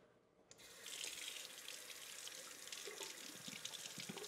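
Kitchen tap turned on about half a second in, running cold water steadily over a bench cutter held in the stream.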